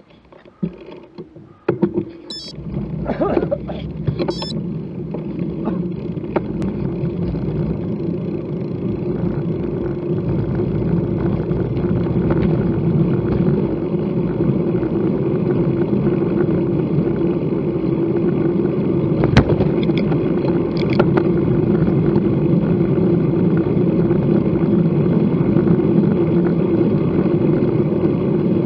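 Wind rushing over a bicycle-mounted camera's microphone, with tyre noise on the road, as the bicycle sets off and picks up speed; it grows louder over the first several seconds and then holds steady. A few short clicks come near the start.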